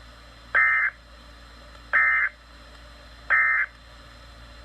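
Emergency Alert System end-of-message code on NOAA Weather Radio: three short bursts of warbling digital data tones, a bit over a second apart. They mark the end of the severe thunderstorm warning broadcast.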